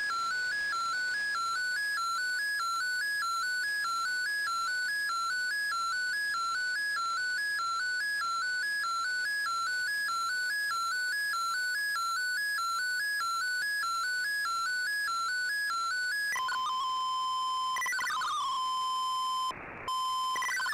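Shortwave digital-mode (MFSK) broadcast signal from the radio's speaker: the tone of a picture being transmitted, hopping regularly back and forth between two pitches about twice a second. About 16 seconds in it gives way to a pair of steady tones, with a brief dropout near the end.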